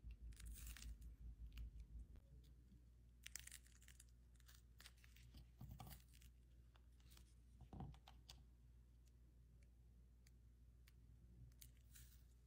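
Faint crinkling and tearing of a gold foil covering as fingers peel it off a ball of slime, in a few short bursts over a low steady hum.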